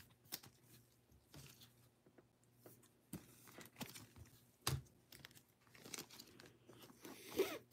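Faint handling sounds of a trading card and rigid plastic top loader: soft sliding scrapes and small plastic clicks, with one sharper tap about halfway through.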